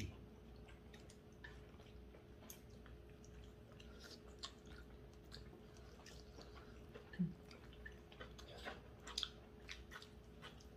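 Faint chewing and mouth sounds of people eating spicy braised chicken and glass noodles, with scattered light clicks of chopsticks. A short low vocal sound comes about seven seconds in.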